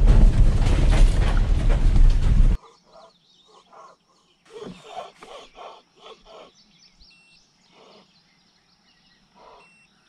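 Pickup truck driving on a gravel lane, heard from inside the cab as a loud steady rumble, cut off sharply about two and a half seconds in. A quiet outdoor stretch follows, with faint bird chirps and a few faint short sounds.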